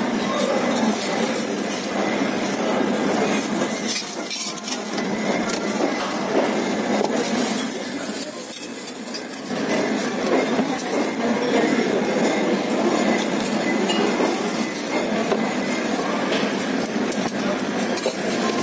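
Dishes and cutlery clinking over a steady restaurant background noise.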